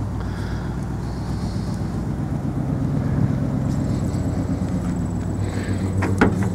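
A steady low motor hum runs throughout, with a few sharp clicks near the end.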